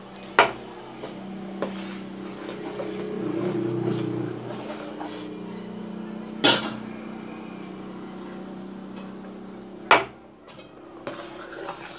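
Three sharp knocks of a metal utensil against a cooking pan as semolina is added to boiling water and stirred, the loudest near the end, over a steady low hum.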